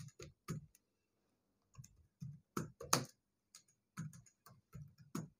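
Typing on a computer keyboard: a run of faint, irregularly spaced key clicks as a word is typed out.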